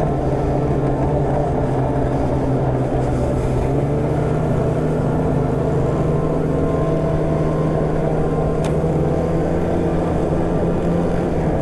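Polaris snowmobile engine running at a steady cruising pace under the rider, with track and wind noise, holding an even pitch throughout.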